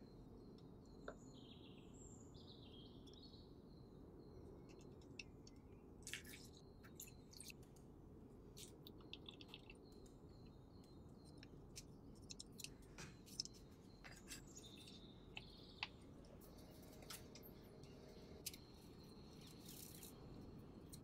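Near silence: low steady hiss, with scattered faint clicks and taps and a few faint bird chirps.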